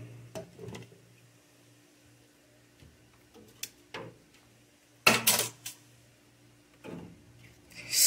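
Ice being scraped and pried loose from a refrigerator's freezer compartment by hand: scattered rubbing and cracking noises, the loudest a cluster of scrapes about five seconds in and another near seven seconds, over a faint steady low hum.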